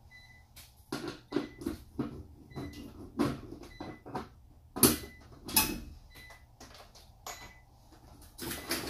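Irregular clicks, knocks and metal rattles of the side panel of a walk-in freezer's evaporator coil being unfastened and pulled off by hand, with two louder clanks about halfway through and another cluster near the end.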